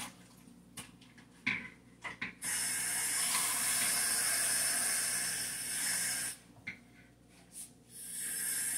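Kitchen sink faucet running, water hissing into a plastic bowl to refill it: a few knocks first, then a steady stream for about four seconds, and a shorter rush of water near the end.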